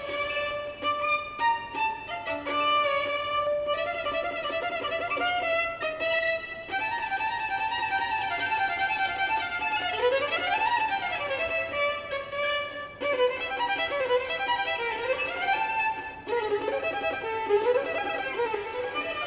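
Violin playing a melody, with wavering held notes and sliding pitch glides up and down about ten seconds in.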